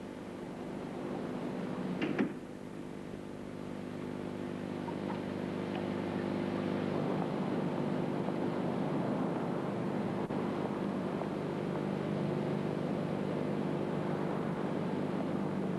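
Steady low hum under a rushing noise like passing street traffic, which swells over the first several seconds and then holds. A short sharp knock comes about two seconds in.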